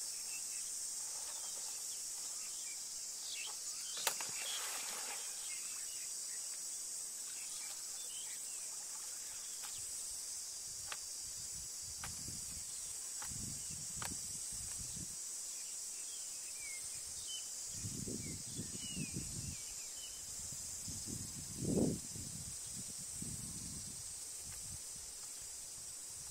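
Steady high-pitched drone of insects, with faint bird chirps and a few sharp clicks. In the second half come low rustling and thuds of feet and hands in creek-bank mud, the loudest about three-quarters of the way in.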